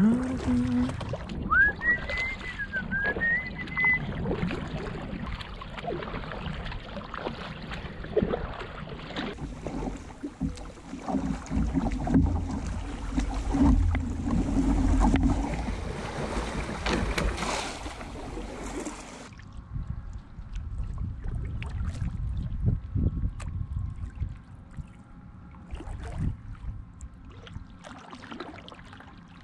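Kayaks being paddled down a small river: paddle strokes, splashing and rippling water, with the water rushing louder in the middle stretch. The sound drops to quieter paddle dips and drips about two-thirds of the way through. A short whistle sounds near the start.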